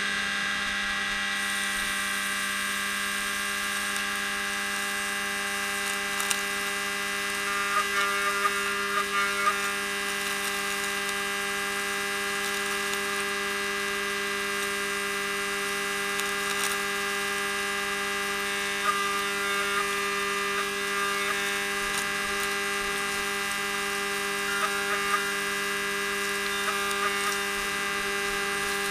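Machine-tool spindle running steadily at speed, a whine of several fixed tones, with short crackling bursts a few times.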